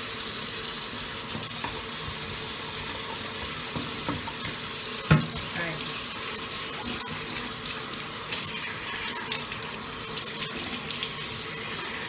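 Kitchen tap running steadily into the sink while a dishwasher filter is rinsed under it. A single sharp knock about five seconds in.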